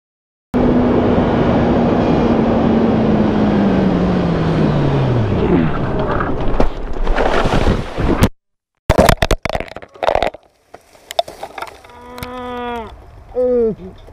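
Wind rush and a Kawasaki ZX-10R's inline-four engine note falling steadily as the rider brakes hard, then, after a short gap, a few sharp knocks as the bike leaves the road into a ditch. Near the end the rider groans and moans in pain, winded and unable to speak.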